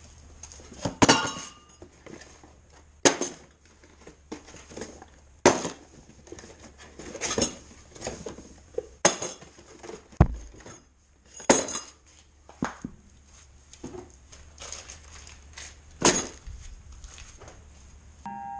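Metal parts clinking and knocking as they are handled and set down, irregularly every second or so, some strikes ringing briefly, over a faint low hum.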